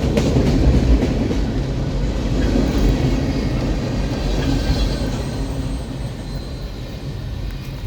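Freight train cars rolling over the crossing: a steady low rumble with wheel clatter on the rails and a faint wheel squeal midway, fading as the train moves off.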